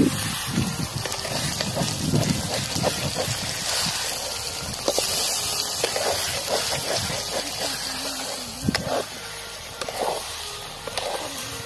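Chicken curry sizzling and bubbling in an aluminium pot over a wood fire, a steady hiss. A metal ladle stirs it, scraping and clinking against the pot.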